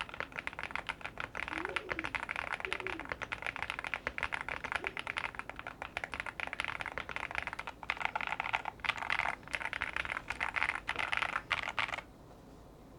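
Yunzii AL80 aluminium-case mechanical keyboard with Gateron Zero switches being typed on fast in a continuous stream of key clacks, which stop abruptly about a second before the end.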